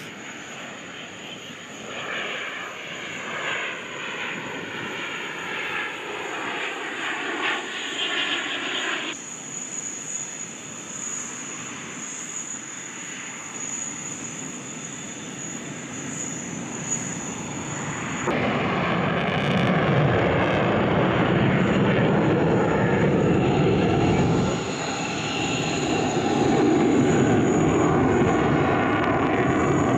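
Military jet engine noise across edited shots: an F-16E/F Block 60 fighter passing, its sound sweeping for the first several seconds. After that comes a Mirage 2000-9 fighter's jet engine, first quieter with the jet on the runway, then loud and steady from about 18 seconds in as it flies its display.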